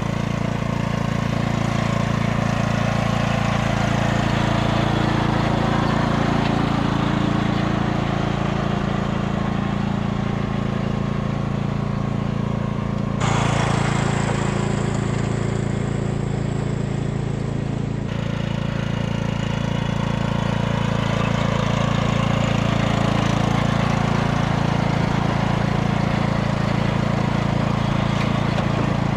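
Craftsman riding lawn mower engine running steadily under way, towing a loaded cart. A few seconds of brighter hiss come in about halfway through.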